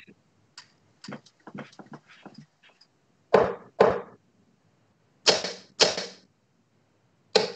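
Darts striking a dartboard: three throws about two seconds apart, each thud heard twice, half a second apart.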